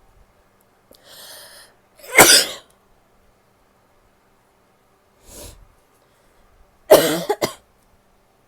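A woman coughing. A breath in leads to a loud cough about two seconds in, and near the end a second loud bout breaks into a few quick coughs.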